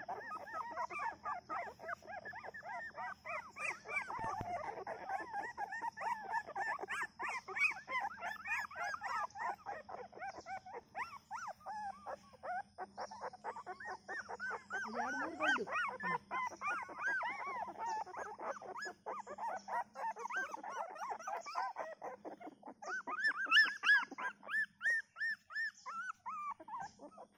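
A litter of young puppies whimpering and squeaking in a steady stream of short, high cries that rise and fall in pitch, with a louder run of squeals near the end.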